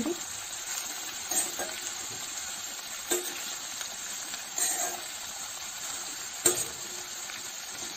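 Sliced snake gourd frying in hot oil in an iron kadhai, a steady sizzle, while a metal ladle stirs it and scrapes and knocks against the pan about four times.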